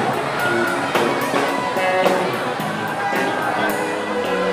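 Live rock band playing an instrumental jam, electric guitars to the fore over a fast, steady beat.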